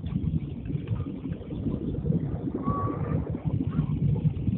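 Airliner cabin noise: the steady low rumble of the jet's engines and airflow around the fuselage. A brief faint high tone sounds about two and a half seconds in.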